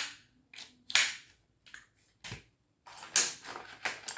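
Hard plastic toys being handled, clacking against each other: a handful of sharp, irregular clicks and knocks, the loudest about a second in and a cluster around three seconds.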